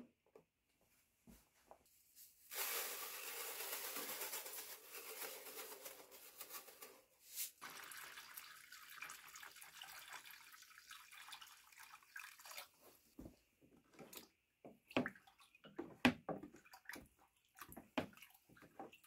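Water poured in a stream into a plastic tub, filling it for about ten seconds. Then a wooden stick stirs the water, with a string of sharp knocks and splashes against the tub.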